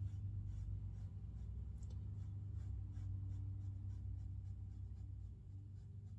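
Small paintbrush dabbing and scratching on watercolour paper in a quick run of light taps, about three or four a second, over a steady low hum.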